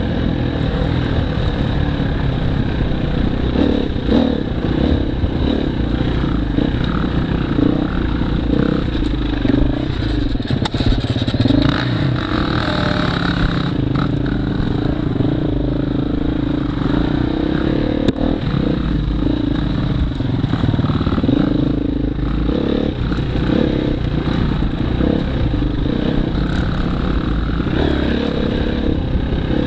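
Husqvarna FE 250 four-stroke single-cylinder enduro motorcycle engine running at part throttle, its pitch rising and falling with the throttle, with scattered knocks and clatter from the bike over rough ground.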